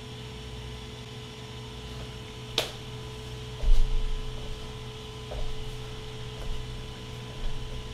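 Steady electrical hum with a faint steady whine, broken by one sharp click about two and a half seconds in and a brief low thud about a second later.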